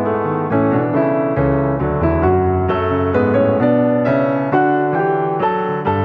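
Background piano music: a gentle melody of struck notes, about two or three a second, over held chords.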